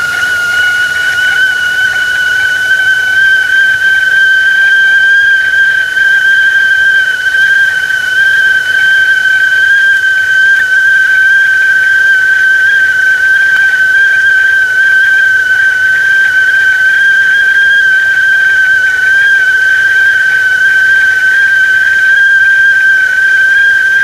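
Whistling tea kettle at the boil, sounding one loud, high, steady whistle. It edges slightly up in pitch over the first few seconds and then holds level.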